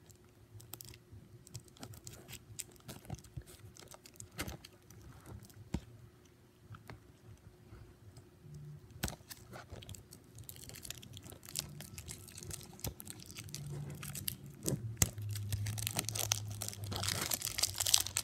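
Plastic shrink wrap on a Blu-ray case being picked at and peeled off by hand, crinkling and tearing. Sparse scratchy clicks at first, growing denser and louder over the last several seconds.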